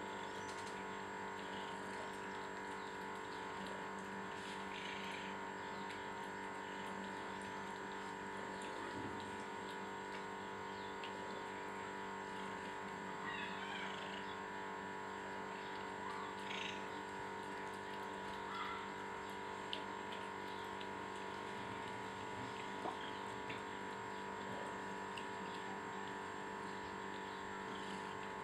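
A steady machine hum made of several fixed tones, with faint chewing and a few sharp clicks from two Abyssinian cats eating out of a steel bowl. A brief high chirp comes about halfway through.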